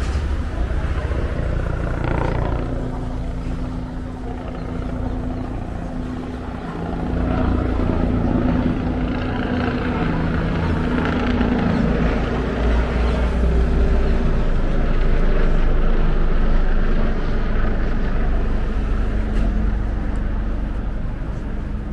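Road traffic: engines of passing vehicles running with a steady low rumble, swelling louder as vehicles draw close.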